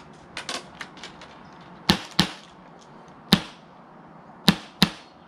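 HPA-powered airsoft MP7 firing five single semi-auto shots, each a sharp air-gun crack, unevenly spaced as the trigger is pulled one shot at a time. Lighter clicks come in the first second.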